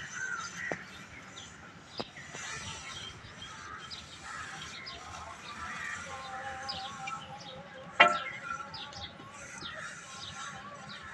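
Birds chirping in the background, short repeated high chirps, with a sharp click about two seconds in and a loud sharp knock about eight seconds in.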